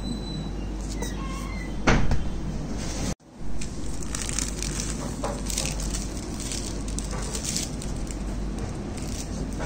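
A plastic squeeze bottle of mayonnaise squeaks and then splutters loudly about two seconds in. After a sudden cut, plastic film crinkles in short rustles as processed cheese slices are peeled from their pack, over a steady low hum.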